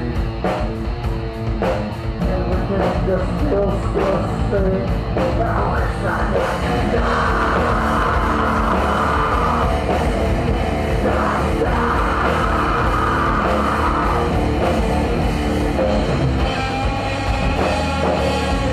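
A live heavy rock band playing loud: electric guitars, bass guitar and a drum kit. The first few seconds are choppy, with separate drum hits, and the band then settles into a dense, unbroken wall of sound.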